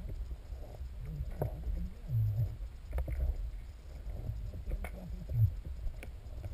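Muffled underwater noise picked up through a dive camera's housing: a low, uneven rumble of water moving against it, with a few faint clicks and knocks.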